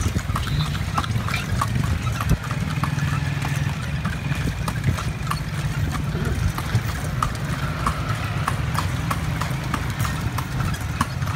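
A carriage horse's hooves clip-clopping on the street at an even pace, about two to three hoofbeats a second, over a steady low rumble of the moving carriage.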